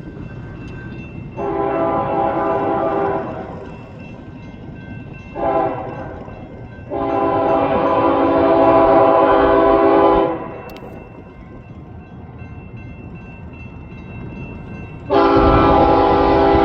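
Freight locomotive air horn with several chords sounding in blasts: a medium one, a short one, a long one, then another starting near the end, over the steady low rumble of the passing train.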